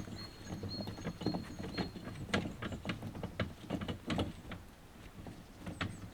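Irregular sharp cracks and knocks of brushwood branches being handled and heaped. A bird gives short, high repeated chirps in the first two seconds.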